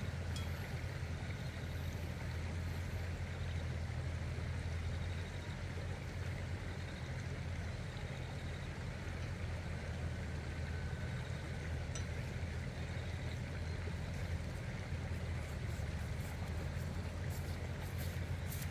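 A steady low mechanical drone.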